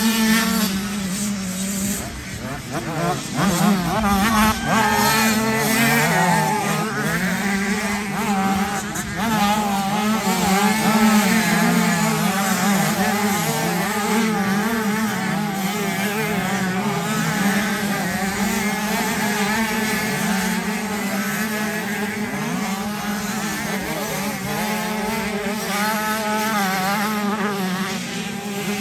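Motocross bike engine running hard at high revs, its pitch rising and falling constantly with throttle and gear changes.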